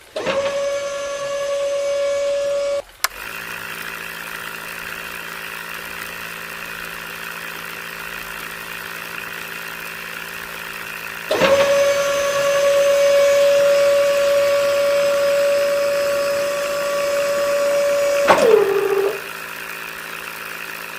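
Small DC motors of a homemade toy drilling rig running steadily. A higher-pitched whine alternates with a lower hum: the whine runs for about three seconds, the hum takes over, the whine returns about eleven seconds in, and near the end it drops in pitch before the hum resumes.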